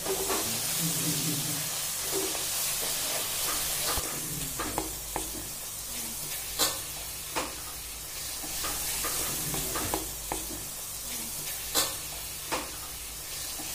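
Chopped tomatoes, onion and green chillies sizzling in a metal kadai while a wooden spatula stirs them. A few sharp taps come from the spatula striking the pan, twice in the middle and twice near the end.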